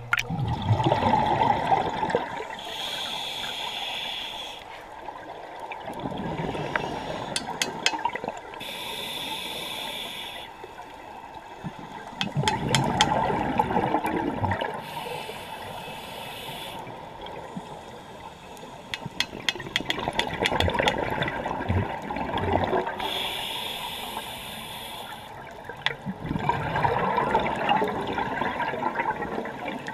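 Scuba diver breathing through a regulator underwater: a hissing inhale through the second stage, then a longer, louder rush of exhaled bubbles. About four full breaths, one every six to seven seconds.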